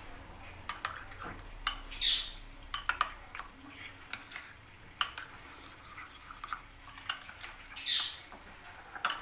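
Metal cutlery stirring chicken pieces through a thick cream-and-yogurt marinade in a bowl, with many light clinks against the bowl and wet squelching scrapes about two seconds in and again near the end.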